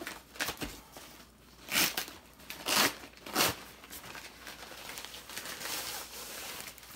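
Fabric carry bag of a lighting kit rustling and crinkling as it is handled and opened, with three short, louder rasps about two, three and three and a half seconds in.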